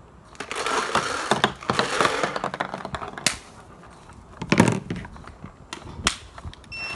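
Handling noise of a DYE DSR electronic paintball marker being readied: a couple of seconds of dense clicking and rustling, then single sharp clicks and a heavier thump about four and a half seconds in.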